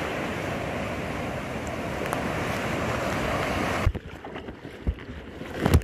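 Breaking surf washing around a kayak in the shallows, a steady rush of sea noise. About four seconds in it cuts to quieter open water with a few low thumps, the loudest near the end.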